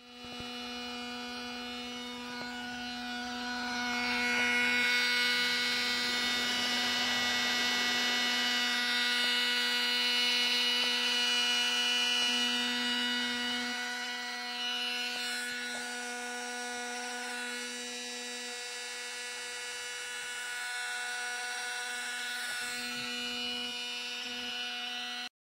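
Small 12 V electric transfer fuel pump running steadily, a buzzing electric hum as it draws fuel out of the tank through a hose. The hum grows louder a few seconds in and eases off a little past the middle.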